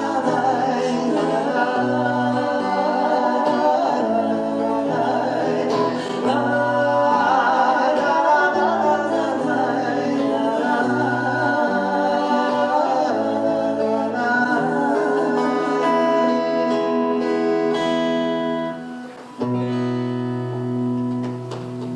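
Closing bars of an acoustic ballad: acoustic guitar with singing voices, no words made out. The song ends on a long held final chord in the last few seconds.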